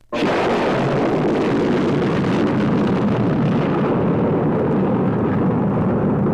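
Science-fiction sound effect from a 1958 Folkways record: a loud, steady, dense rushing noise that starts abruptly out of near silence, heaviest in the low and middle range, holding level with no pitch changes.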